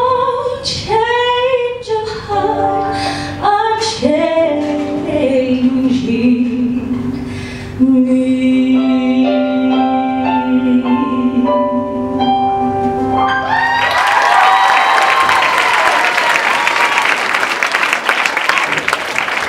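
Solo female voice singing a musical-theatre ballad over keyboard accompaniment, ending on a long held final note. About fourteen seconds in, the singing stops and the audience applauds.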